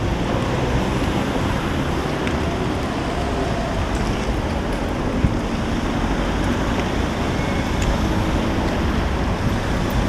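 Steady city street noise of road traffic going by, with a low rumble of wind on the microphone.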